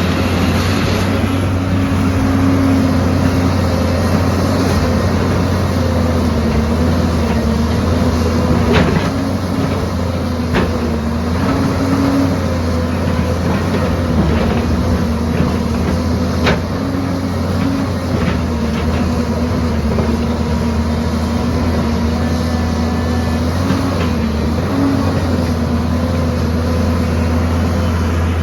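Excavator engine running steadily under work, its pitch wavering slightly with load, with a few sharp knocks about nine, ten and sixteen seconds in.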